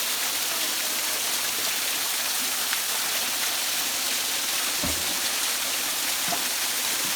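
Small waterfall, about 12 to 14 feet high, pouring steadily: an even rushing hiss of falling water. A faint low knock about five seconds in.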